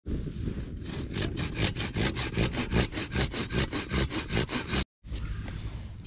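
Curved pruning saw cutting through a dry branch, with quick, even back-and-forth strokes at about five a second. The sawing starts about a second in and stops shortly before the end.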